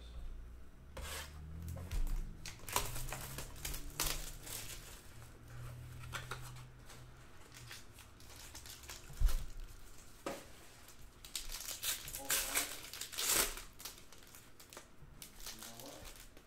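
Crinkling and tearing of the plastic wrapper on a trading-card pack as it is unwrapped by hand, in a series of short crackles. A single sharp thump about nine seconds in.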